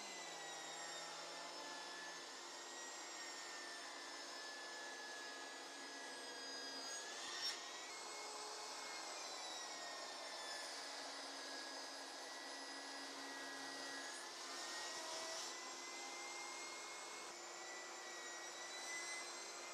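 Table saw motor running with a faint, steady whine that drifts slightly in pitch as the blade rips walnut and maple into strips.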